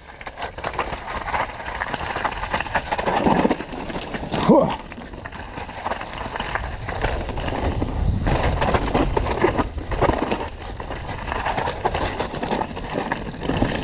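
Mountain bike descending a rough downhill trail, heard from a GoPro on the rider: steady tyre roar over dirt and rock, the bike's chain and frame rattling, with wind rumbling on the microphone. A short shout from the rider about four and a half seconds in.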